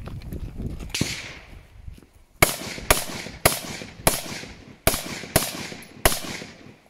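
Running footsteps on gravel, then gunshots: a single shot about a second in, a pause of over a second, then a string of seven shots roughly half a second to three-quarters of a second apart, each trailing off in an echo.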